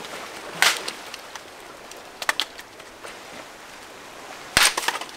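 Dry branches being snapped into firewood: a sharp crack about half a second in, a quick double crack a little after two seconds, and a louder cluster of cracks near the end.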